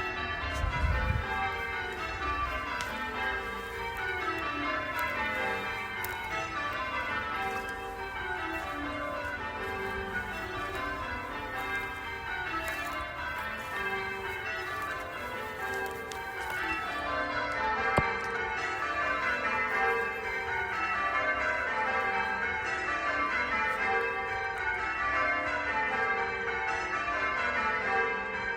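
A ring of church bells pealing: the bells are struck one after another from highest to lowest in rapid runs, and the runs repeat over and over. A brief low rumble comes about a second in.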